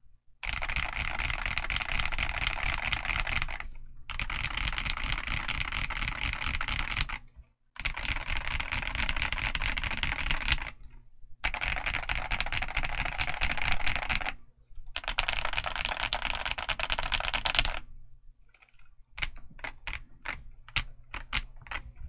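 Rapid typing on a Yunzii x Kzzi Z98 Pro mechanical keyboard with Kzzi Eternity Tactile switches and double-shot PBT KSA keycaps. It comes in five runs of fast keystrokes, each about three seconds long with brief pauses between. Near the end the typing turns to slower, separate key presses.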